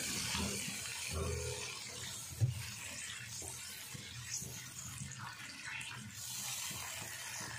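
Water poured from a jug into a wok of hot frying masala, which sizzles as a spatula stirs it, with a single knock against the pan about two and a half seconds in.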